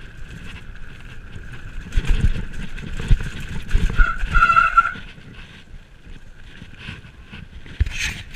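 Mountain bike riding fast down a rough dirt trail: tyres rumbling and the bike knocking over bumps, under a steady high whine. A louder squeal comes about four seconds in and lasts about a second.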